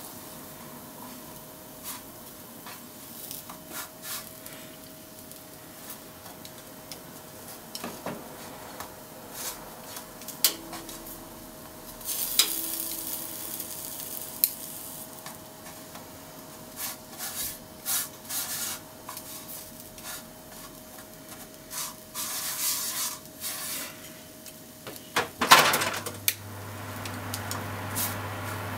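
Flour-coated pork slices frying with a light sizzle in a nonstick frying pan, with wooden chopsticks clicking and scraping against the pan as the pieces are turned. The sizzle swells twice, and a louder clatter of chopsticks on the pan comes near the end.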